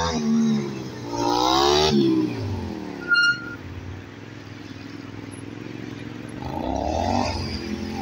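Motorcycle engine revving up and down in quick rises and falls as it is worked through tight turns, then dropping away to a low running sound. A short high beep about three seconds in, and the engine rises once more near the end.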